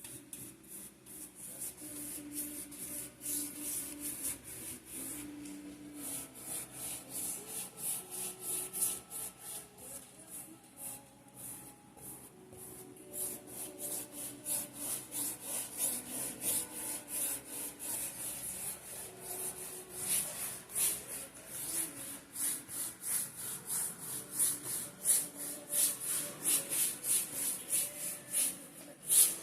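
A brush stroking varnish across a canvas: a steady run of quick, scratchy rubbing strokes, several a second. Faint background music with held notes lies underneath.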